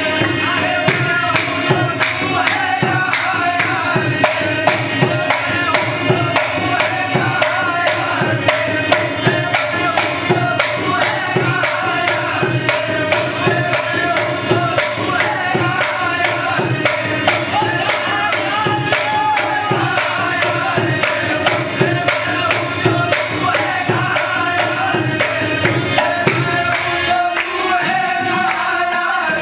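Qawwali music: two harmoniums and a hand drum playing a quick, steady beat, with voices singing over them.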